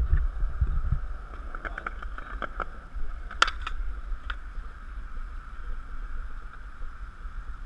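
A few sharp skateboard clacks on concrete, the loudest about three and a half seconds in, over a steady hum and a rumble of wind on the microphone that dies down after the first second.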